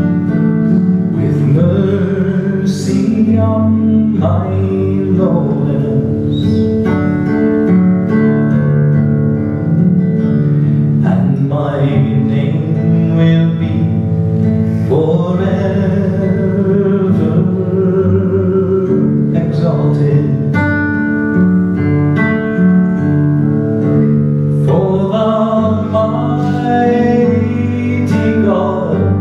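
Man singing with a nylon-string classical guitar accompaniment, the voice in long phrases that begin every few seconds over steadily played guitar.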